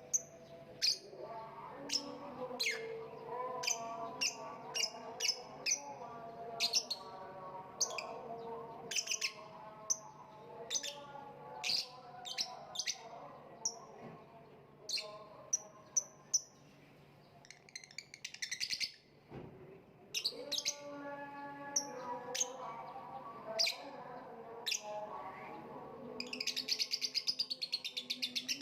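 Lovebird chirping: a series of short, sharp high chirps, running into a rapid chattering trill near the end.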